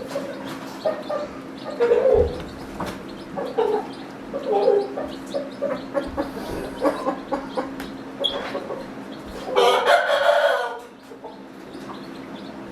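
Chickens clucking in short calls, then a rooster crowing once, about ten seconds in. A steady low hum runs underneath.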